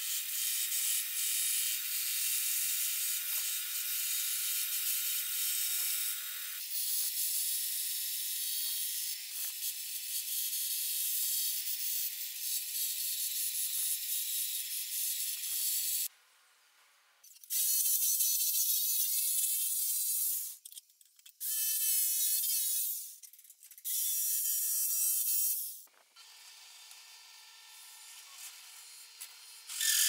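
Benchtop bandsaw cutting a solid-wood board: a long, steady, high hissing cut with a whine, then three shorter cuts of a few seconds each separated by brief pauses. A quieter steady hum follows near the end.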